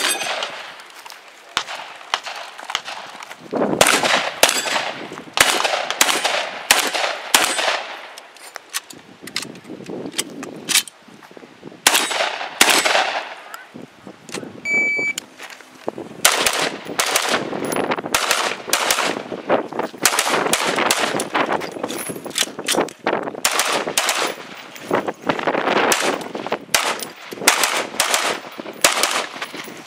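Rapid gunfire in fast strings of shots with short pauses between, from a 3-gun competitor's guns; the later strings come from an AR-style rifle. Each shot rings out briefly.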